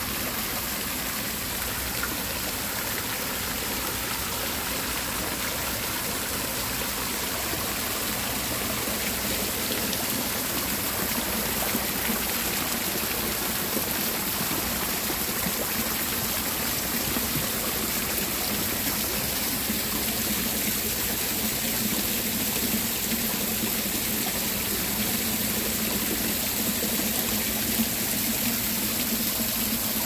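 Water from an ornamental stone fountain splashing steadily, falling from the upper basin and spouts into the pool below.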